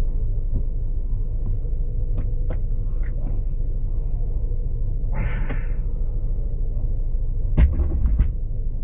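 Low steady rumble of a Mini Cooper S's engine heard inside the cabin, with a few light clicks and a knock as the automatic gear selector is moved.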